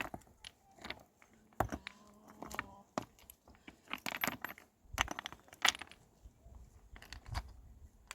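Irregular sharp clicks and knocks of hard objects striking one another, a dozen or so spread unevenly, each short and clean.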